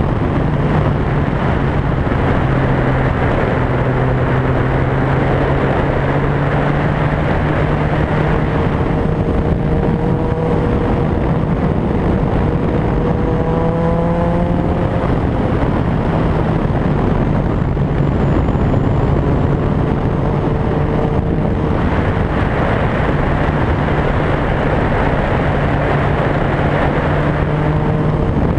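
Motorcycle engine running steadily under way over a constant rushing noise; about halfway through, the engine note climbs as the bike accelerates, then settles.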